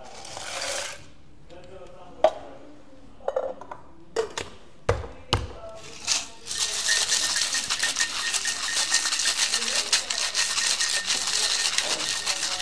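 A few clinks and knocks of glassware and kitchen utensils, then from about six and a half seconds in a continuous rattle of ice being shaken in a cocktail shaker.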